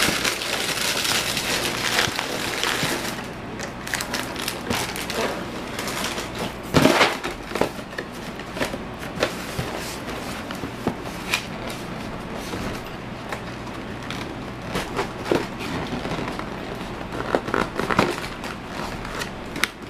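Family-size Lucky Charms cereal box being folded and creased by hand: a run of cardboard rustles and clicks, busiest in the first three seconds, with one loud, sharp click about seven seconds in.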